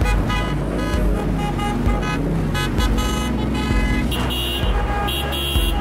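Car horns honking, with background music playing under them with a steady beat.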